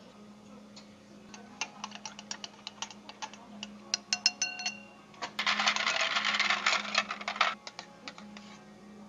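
A long bar spoon stirring milk over ice in a glass: ice cubes and spoon clink against the glass with a few ringing taps, then about two seconds of dense rattling as the stirring speeds up. A low steady hum runs underneath.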